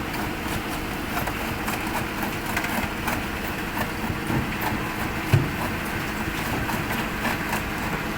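Excavator engine running steadily while it works, with scattered clanks and knocks and one heavier thump about five seconds in.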